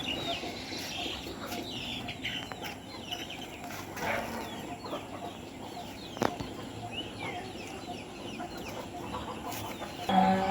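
Many small birds chirping in quick, short calls around a cattle shed. Near the end a cow starts a brief low call, the loudest sound.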